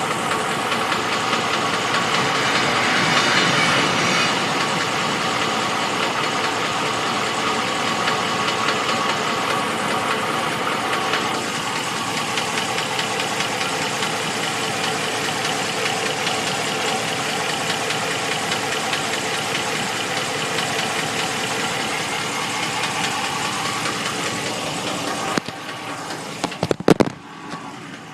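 2014 Ram 1500's engine running at idle with a knock that the owner takes for a valve train knock. Near the end the engine sound drops away sharply, followed by a few sharp clunks.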